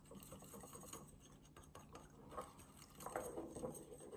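Whisk beating a thick tahini dressing in a bowl: faint, rapid ticking of the wires against the bowl.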